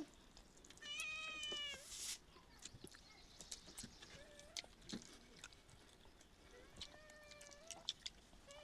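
A cat meowing twice: one clear meow about a second in and a fainter, longer one near the end. Faint scattered clicks lie between the two.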